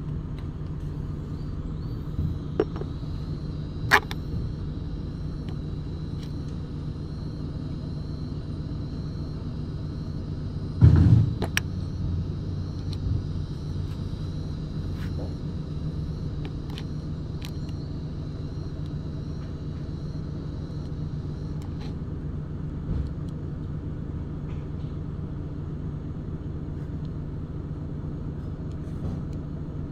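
A steady low machine hum, with a few light clicks and one heavy thump about eleven seconds in, as the parts of a disassembled hydraulic gear pump are handled.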